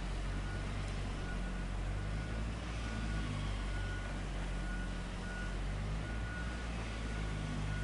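Large bulldozer's diesel engine running steadily, with a reversing alarm beeping at a steady pace, roughly one beep every 0.7 seconds.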